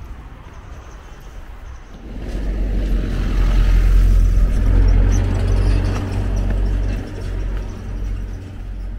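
An SUV driving past: its engine rumble and road noise swell about two seconds in, are loudest around the middle, then fade away toward the end.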